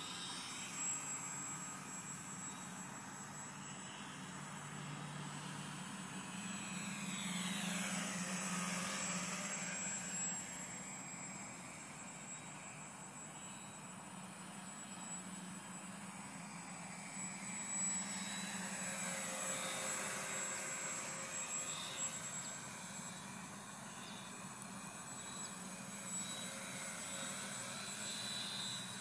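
Homemade tricopter's three electric motors and propellers buzzing in flight, growing louder twice as it passes near, with a sweeping change in its whine each time.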